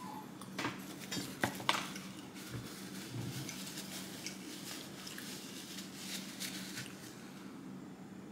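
Plastic spoons clicking lightly a few times in the first two seconds, then soft chewing and napkin rustling over a faint steady hum.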